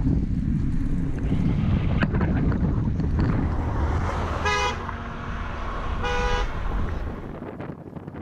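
Two short horn beeps about a second and a half apart, over a steady low rumble of wind and motor noise.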